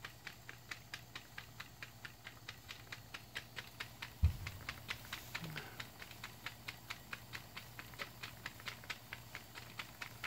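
Model Stuart Williamson steam engine chugging away on live steam at about 10 psi, running quietly with soft, even beats at about four a second over a steady low hum. A single dull thump comes about four seconds in.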